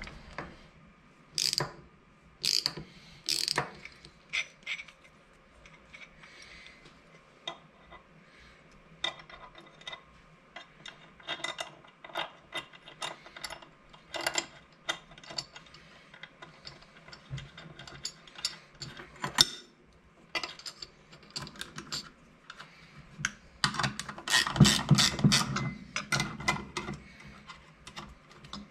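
Metal parts and hand tools clicking and clinking on a workbench as a K24 turbocharger is bolted together, with a ratcheting wrench clicking in quick runs on the housing clamp bolts near the end.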